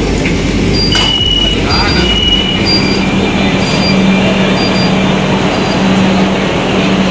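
Metro train standing at a platform with its doors opening: a click about a second in, then a short high beep repeating about once a second, over a steady low hum and loud station and train noise.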